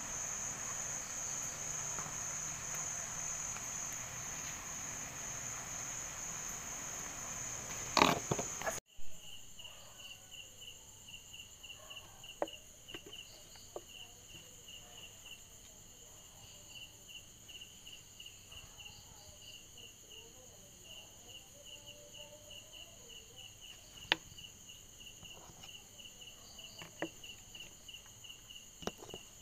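Crickets chirping at night: a steady high trill for about the first nine seconds, then after a sudden cut a fast, evenly pulsed chirping. A few short knocks sound over it, the loudest about eight seconds in.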